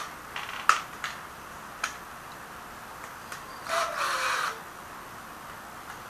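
Cordless drill-driver tightening a stainless screw into a stack of stainless electrode plates: one short run of the motor, under a second, about two-thirds of the way in, its pitch dropping as it stops. It is preceded by a few sharp clicks in the first two seconds.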